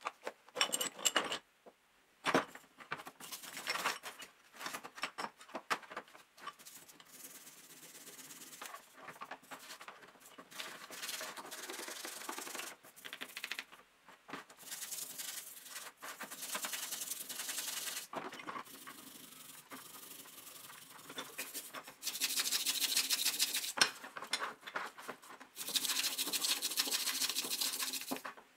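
Wet rusty steel saw parts are tipped from a rust-removal soak into a tray, with liquid splashing and metal parts clattering. Then a stiff brush scrubs the wet, rust-caked parts, a steady scraping that grows louder and busier in the last several seconds.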